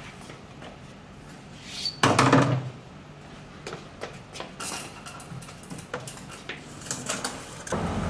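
A large 400 mm PVC pipe set down on concrete with a deep, hollow thump about two seconds in, followed by lighter knocks and a brief scrape as it is shifted.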